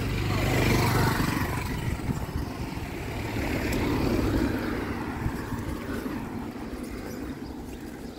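A car driving along the street, its engine and tyre noise loudest about a second in and then slowly fading away.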